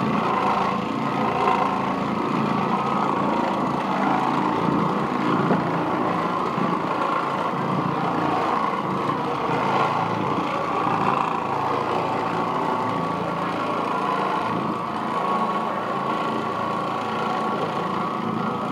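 Oreck Orbiter XL Pro orbital floor machine running steadily, its motor driving a bonnet pad over carpet during bonnet cleaning.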